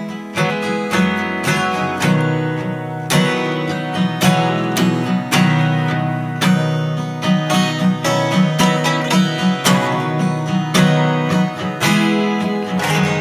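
Acoustic guitar playing an instrumental break in a folk song, strummed in a steady rhythm with no singing.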